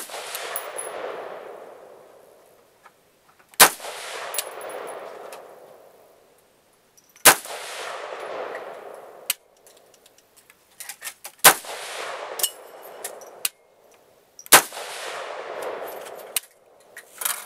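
Yankee Hill Machine YHM-15 AR-15 carbine fired in five single shots, about three to four seconds apart, each sharp report trailing off in a long echo of about two seconds. Fainter cracks and clicks come between the shots.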